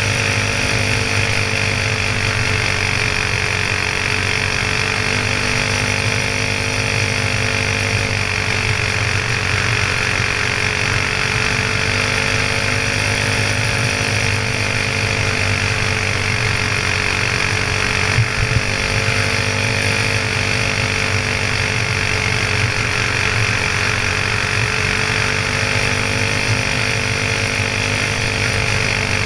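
Honda-clone single-cylinder four-stroke kart engine running hard, recorded onboard, its pitch rising and dipping slightly every several seconds as the kart laps the oval. A brief knock about eighteen seconds in.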